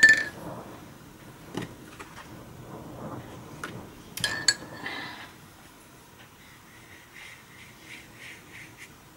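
Bright clinks of a hard object against glass or crockery: one at the start and a quick double clink about four seconds in, each ringing briefly. Faint light taps and handling of craft supplies come between and after them.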